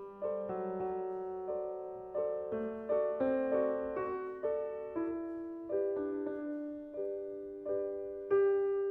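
Solo piano playing a slow, gentle melody, one note or chord struck about every second and each dying away.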